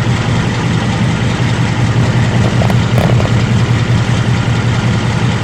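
Ford Mustang GT's third-generation Coyote 5.0 V8 idling steadily. The owner hears an occasional tick at this idle, which appeared after the new engine's first oil change.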